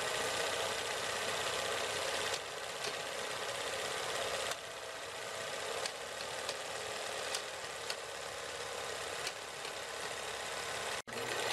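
Steady hiss and faint mechanical whirr of a worn archival film soundtrack, with scattered clicks and pops.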